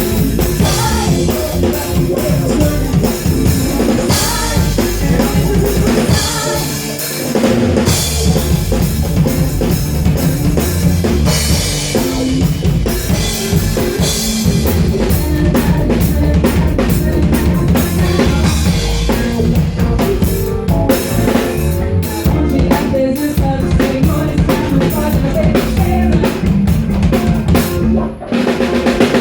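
Live band playing an instrumental passage with the drum kit to the fore, kick drum and snare hits driving a steady beat. The music pauses briefly about a second before the end, then comes straight back in.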